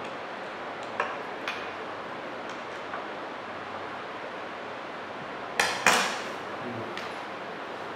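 Light metal clicks of a screwdriver working on a steel oedometer consolidation cell, then a louder double clatter about five and a half seconds in as the screwdriver is put down on the stone bench top.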